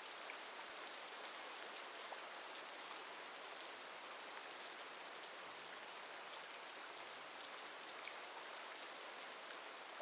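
Steady rain falling: an even hiss with the patter of individual drops, holding constant throughout.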